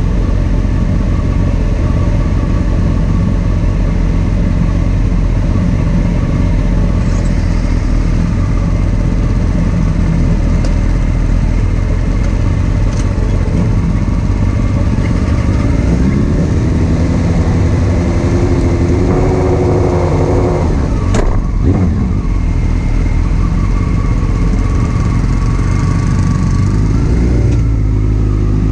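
Honda CBR929RR's inline-four engine idling steadily, with motorcycle engines revving up and down briefly about two-thirds of the way through and a sharp click soon after.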